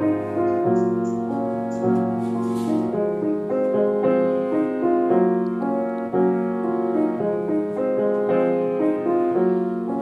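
Background music: a gentle piano tune with held notes.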